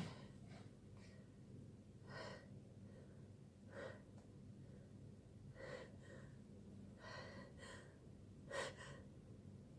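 Faint, short gasping breaths, about six of them spaced a second or two apart, the last the loudest.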